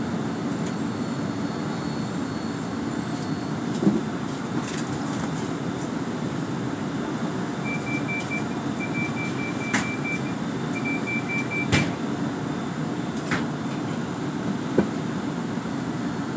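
Interior of a SEPTA Kawasaki light rail trolley in a subway tunnel station: a steady low running hum with a few sharp clunks. A high electronic beeping in short pulses sounds from about eight to twelve seconds in.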